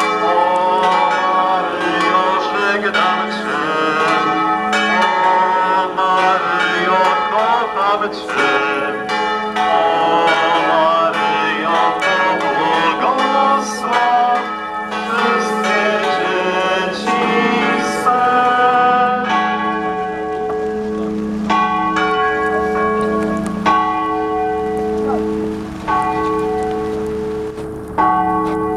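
Church bells pealing, many strikes overlapping. After about twenty seconds the ringing thins to slower separate strikes, roughly one a second, over a steady hum from the bells.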